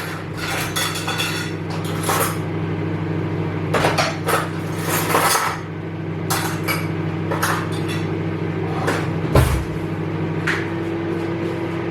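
A spoon clinking and scraping against a cup and tin while Milo and milk powder are scooped and mixed, over the steady hum of a microwave oven running. A heavier thump comes about nine seconds in.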